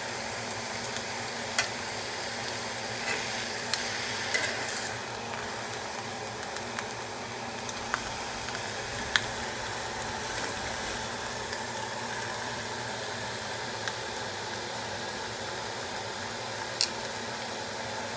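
New York strip steaks sizzling steadily on a hot ridged grill pan, a little louder in the first few seconds, with a few sharp clicks of metal tongs against the pan as the steaks are turned.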